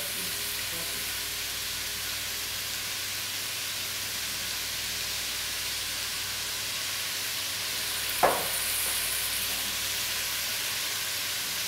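Goulash meat frying in a copper pot, with a steady sizzle. About eight seconds in there is a single sharp knock, followed by a brief louder flare of sizzle.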